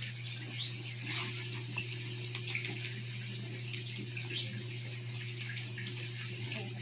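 German Shepherd puppies suckling from their mother: steady wet sucking and smacking with small clicks and a few faint squeaks, over a constant low hum.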